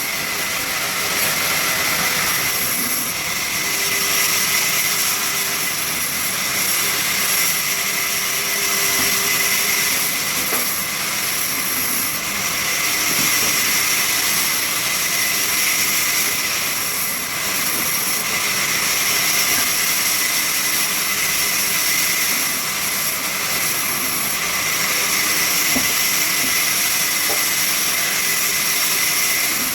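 Sawmill machinery running steadily, a loud even hiss with a high whine that never lets up.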